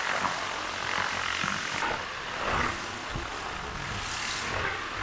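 Pressure washer lance blasting water against stone walls and paving: a steady hiss and spatter that changes in tone as the jet is moved across the stone, over the low drone of the machine's engine.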